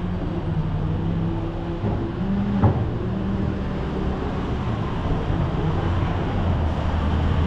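Street traffic: motor vehicle engines running steadily, with one short sharp knock about two and a half seconds in.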